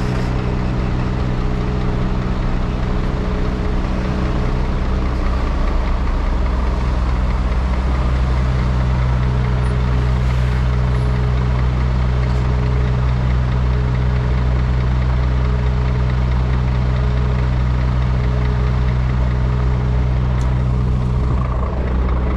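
Scania S500 truck's 13-litre straight-six diesel engine running at low revs as the truck pulls slowly forward, a steady low hum. Its note changes slightly about eight seconds in.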